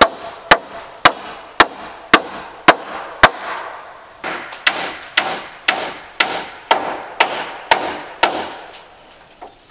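Hammer driving nails into the shed's wooden framing, a steady two blows a second. The first strikes are sharp and crisp; from about four seconds in they turn softer and fuller, as a nail sinks deeper. The blows stop a little after eight seconds.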